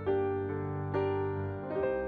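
Slow background piano music: single notes struck about once a second over a held low tone.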